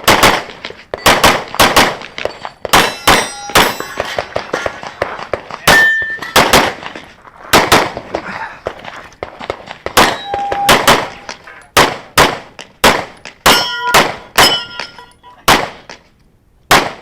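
Rapid pistol shots from an Open-division competition pistol, many of them followed by the ringing clang of steel targets being hit, in a long run of shots. Near the end there is a short pause, then one more shot.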